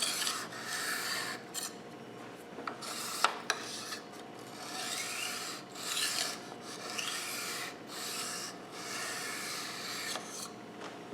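Steel kitchen-knife blade drawn across an Arkansas soft stone in a series of strokes, about one a second: final light-pressure honing passes on the fine stone. A few light clicks fall between the strokes.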